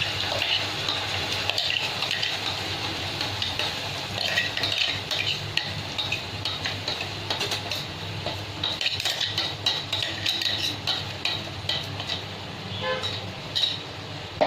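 Freshly added ground coconut masala paste sizzling in hot oil in a kadhai, with a spatula stirring and scraping it against the pan in frequent short scrapes and clicks, busiest from about four seconds in.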